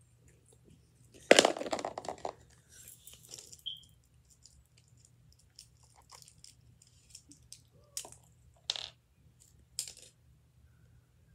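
Small plastic toy pieces and packaging being handled: a clatter about a second in, then scattered light clicks and taps, with three sharper clicks near the end.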